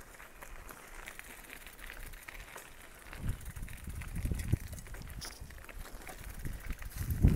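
Footsteps crunching on gravel and weeds while walking, with a low rumble on the handheld microphone that grows from about three seconds in.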